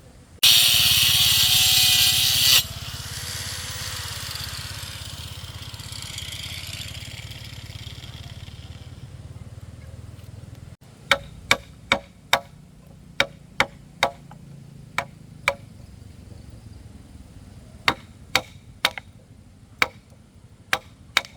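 A hand power tool runs loud and hard for about two seconds, then the sound dies away slowly over several seconds. After an abrupt break it gives way to a series of sharp, irregular knocks, like wood being struck.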